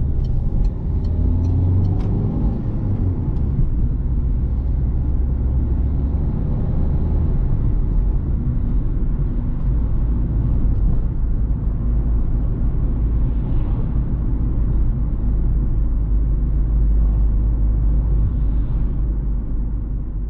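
Citroen C3 Picasso 1.6 HDi four-cylinder turbodiesel heard from inside the cabin while cruising, a steady engine drone under tyre and wind rumble. A few light ticks sound in the first two seconds.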